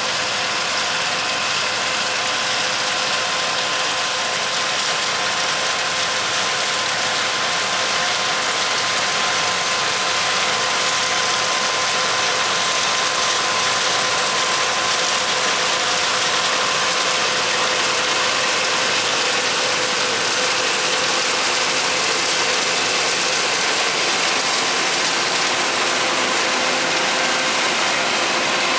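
Farm harvesting machinery running steadily: engine and mechanical drive noise with a constant whine.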